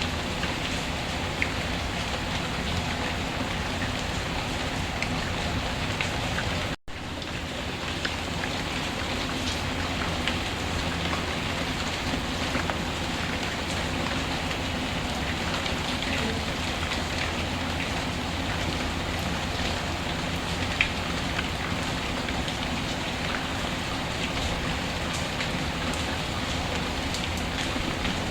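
Steady rainfall with occasional sharp pops from a crackling wood fire. The sound drops out for a split second about seven seconds in.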